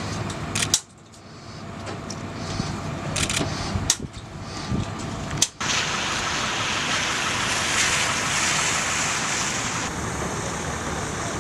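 Steady rushing flight-line noise around a parked F-4 Phantom II, from turbine-driven aircraft or ground support equipment. In the first half a few sharp metal clicks and clunks come from the pilot climbing the ladder and settling into the cockpit. About halfway through, the rush grows louder and hissier and holds steady.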